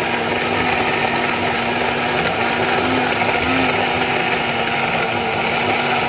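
Small personal blender running steadily, its motor whirring as it blends a smoothie of fruit, oats, milk and ice. The pitch wavers slightly around the middle.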